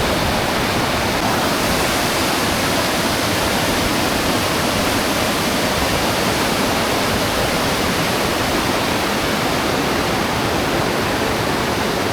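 Waterfall pouring into a pool at close range: a steady, loud rush of falling water.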